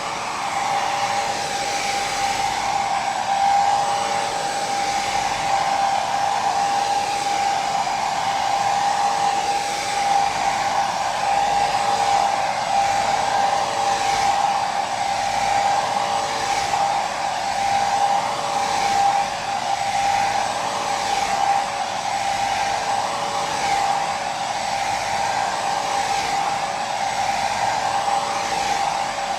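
Hair dryer running steadily, a continuous rushing of air with a steady motor whine.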